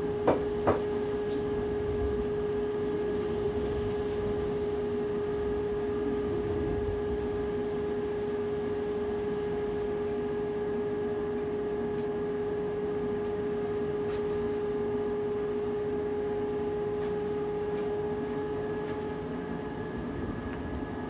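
Strong cyclone wind blowing, a steady rushing noise with a constant humming tone that holds one pitch throughout. Two sharp clicks come just after the start.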